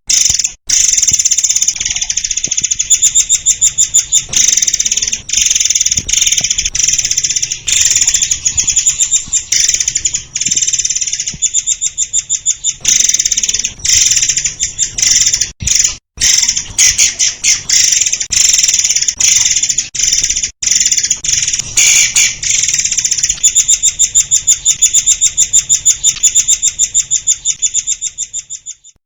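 Murai air songbird singing a nearly unbroken stream of rapid, high, repeated notes and trills, with only brief breaks.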